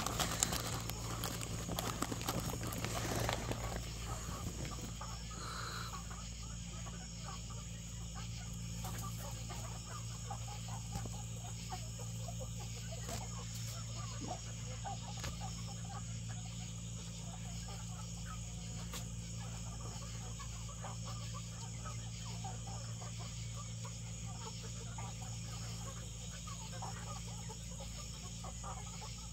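Footsteps through grass for the first few seconds, then a steady, faint outdoor night background with a low hum and scattered soft ticks.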